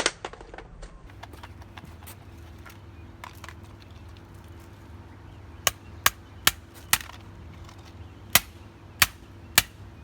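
Sharp blows striking a plastic TV remote control as it is smashed: one hit at the start, then a quick run of four, and three more spaced hits near the end.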